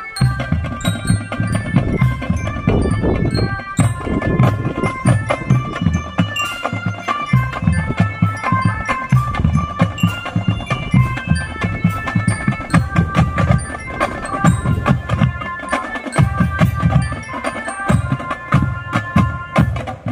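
Non-brass marching drum band playing: a quick melody of pitched notes on mallet bells over steady marching drum beats.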